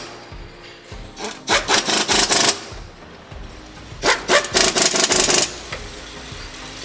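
A power tool runs fasteners in two bursts of rapid clattering, each about a second and a half long, during work on a Golf GTI's DSG clutch assembly.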